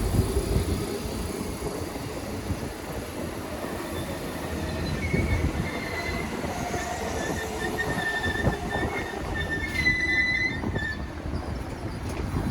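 Seibu Shinjuku Line electric train running past with a low rumble, its wheels squealing in thin high tones that waver in pitch through the middle and are strongest near the end.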